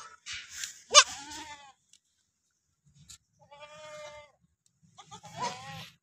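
Goats bleating: four calls, the two loudest within the first second, then two softer ones later.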